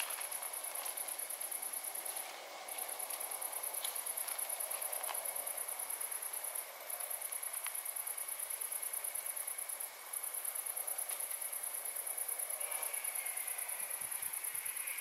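Late-summer insect chorus. A very high-pitched, fast-pulsing trill pauses briefly three times, over a steadier, lower continuous trill.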